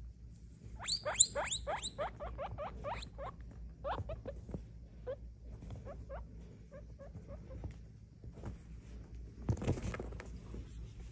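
Guinea pig squeaking: about a second in, a quick run of short, rising, high squeaks, about five a second, loudest at first and fading over two seconds, then scattered fainter squeaks. Near the end there is a brief rustle.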